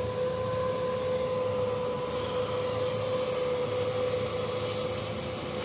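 Steady machine drone holding one constant pitch, like an engine or motor running at fixed speed on the job site.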